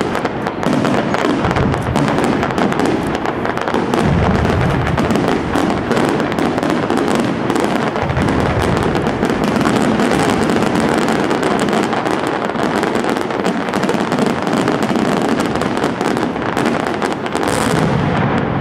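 Pirotecnia Europla's castillo fireworks display going off in a dense, unbroken barrage of bangs and crackling bursts.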